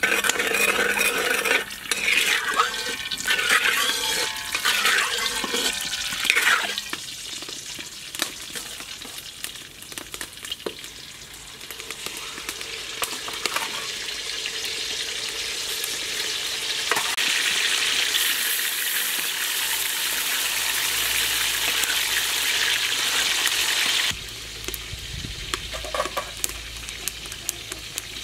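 Red-tail fish frying in hot oil in a wok, the hiss building to a loud, steady sizzle through the middle. Near the end it cuts off abruptly to a quieter scattering of crackles from a wood fire under the stove.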